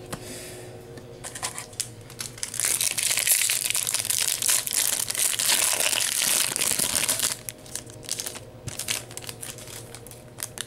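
A Yu-Gi-Oh! Cosmo Blazer foil booster pack crinkling loudly as it is crumpled and torn open, from about two and a half seconds in to about seven seconds. Lighter rustling and clicks come before and after.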